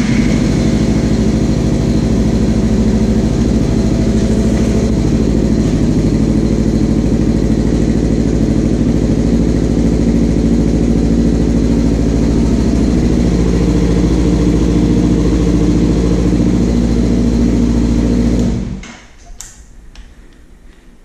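Motorcycle engine idling steadily at an even pitch, then switched off with a sudden drop near the end.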